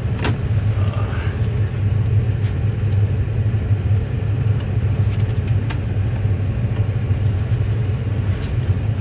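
Steady low rumble of a car's engine and road noise heard from inside the cabin, with one sharp click near the start.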